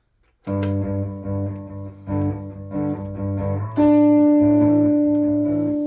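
Ibanez Gio electric guitar playing a background loop: plucked notes and chords begin about half a second in, then a louder chord is struck about four seconds in and held ringing, slowly fading.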